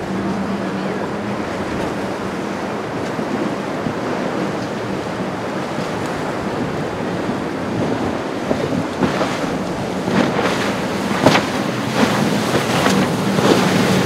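Rough surf and choppy water with wind buffeting the microphone, over a low steady boat-engine hum. From about nine seconds in, a series of sharp, short hits cuts through.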